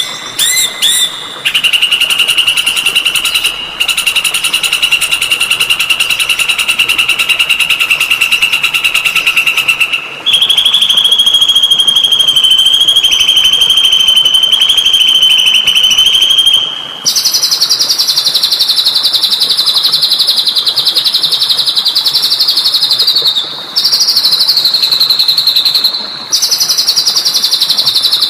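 Songbird song for bird-training (masteran): a few quick rising chirps, then long, rapid trills each held at one pitch for several seconds. The trill steps higher about ten seconds in and again about seventeen seconds in.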